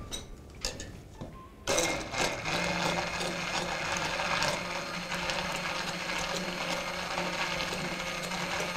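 A few light knocks, then a hand-held immersion blender switches on about two seconds in and runs steadily, puréeing a thin peanut-butter and soy sauce mixture in a plastic beaker.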